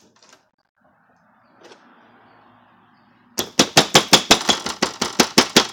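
Slime being squeezed and kneaded by hand, giving a fast run of loud, sharp clicks and pops, about six a second, starting a little past halfway.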